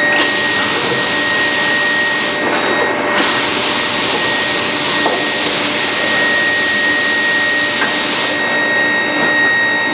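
Grinding-ball production line machinery running: a loud, steady rushing noise with a constant high whine, its hiss dulling and brightening a couple of times.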